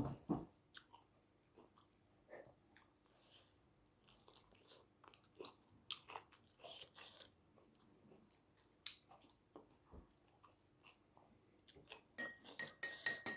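Close-up chewing and crunching of a mouthful of food, in scattered soft clicks. Near the end, several bright clinks of cutlery against a dish.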